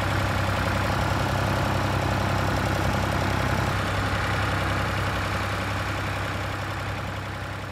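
Fordson Super Dexta tractor's three-cylinder diesel engine running steadily while it pulls a two-furrow plough, fading out over the last few seconds.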